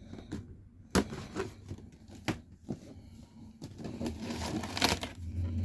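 Cardboard model-kit box being opened by hand: three sharp clicks, with rustling of cardboard and paper that swells near the end.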